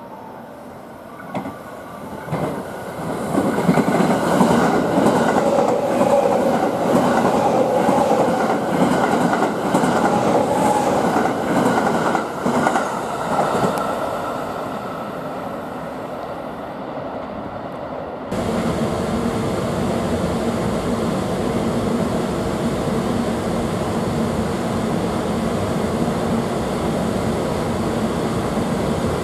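Shirasagi limited express electric train running through the station, its wheel and rail noise loud from about three seconds in and fading after about twelve seconds. After an abrupt cut, a container freight train hauled by an EF510 electric locomotive passes with steady running noise.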